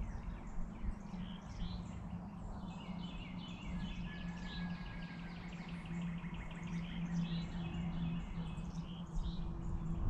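Songbirds chirping, with a rapid trill of repeated notes in the middle and one short held whistle, over a steady low hum.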